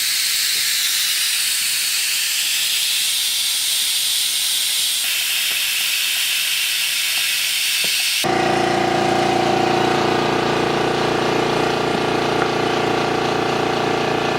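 Compressed air hissing steadily out of a compressor-driven venturi vacuum generator as it draws down a veneering vacuum bag. About eight seconds in the hiss cuts off abruptly and a steady motor-driven machine hum takes over.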